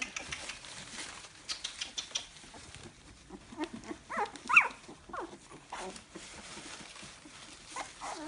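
Litter of about two-and-a-half-week-old American pit bull terrier puppies whining and squealing: a few short cries that fall in pitch, the loudest about four and a half seconds in, with light rustling of the shredded-paper bedding.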